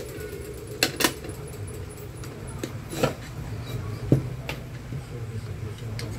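Scattered metal clinks and taps, about five sharp ones with the loudest about four seconds in, as a screwdriver works on and knocks against a metal pressure cooker lid, over a steady low background hum.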